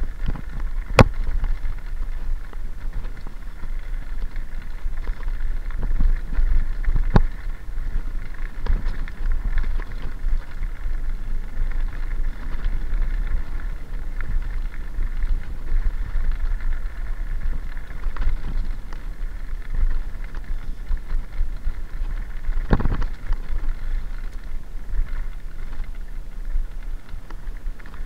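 Mountain bike rolling fast down a gravel track: a steady rumble of tyres on loose stones with wind on the microphone, broken by a few sharp knocks and rattles from bumps, one about a second in and a louder one past two-thirds through.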